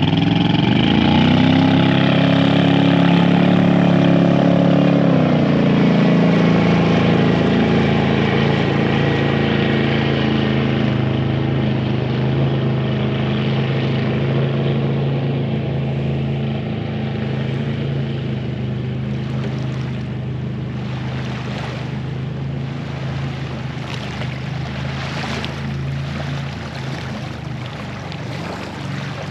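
Motorboat engine running nearby. Its pitch rises at the start and drops about five seconds in, then it holds a steady note that slowly fades.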